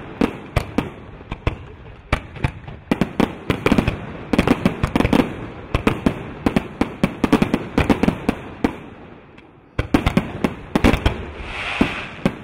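Aerial fireworks shells bursting in rapid succession, many sharp bangs, several a second and often overlapping. The bangs pause briefly about three quarters through, then start again, with a short hissing crackle near the end.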